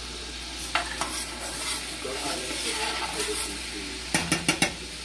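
A metal spoon clinking and scraping as cornstarch is scooped out of its container, with two clinks about a second in and a quick run of four or five taps about four seconds in. Food sizzles in a pan underneath.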